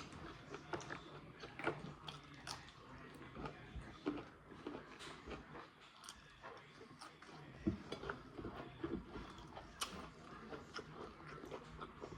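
Close-up mouth sounds of people eating: faint chewing with many small wet clicks and smacks scattered through.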